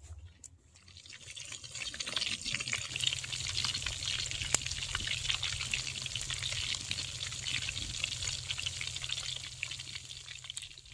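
Rabbit pieces deep-frying in hot oil in a cast iron Dutch oven over a fire: a dense, steady sizzling and crackling that builds up over the first couple of seconds.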